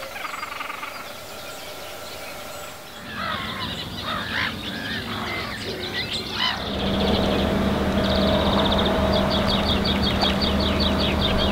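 Wild birds singing and calling, many short chirping phrases. About seven seconds in, a steady low hum and rumble begins beneath them, and one bird keeps up a fast, rapid-fire trill.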